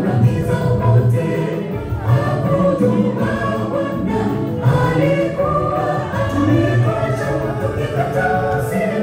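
Gospel vocal group of men and women singing together into handheld microphones, several voices sustaining and moving in pitch.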